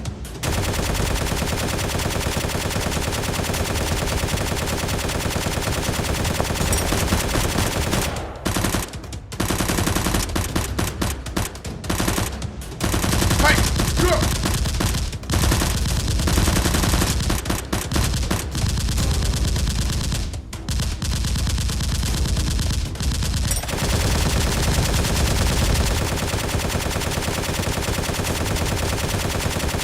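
Sustained rapid automatic gunfire with brief pauses, from blasters firing in a Nerf battle.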